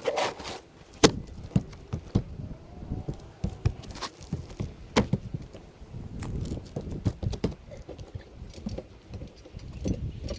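Irregular knocks, taps and scraping from work on a shed's shingle roof, with shingles being handled and set in place. There is no steady hammering rhythm; the sharpest knocks come about a second in and about five seconds in.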